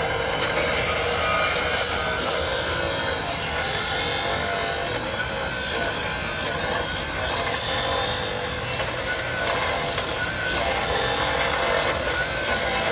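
Abrasive power cutter grinding steadily through a steel rail, trimming the excess length off a replacement rail so it fits the gap.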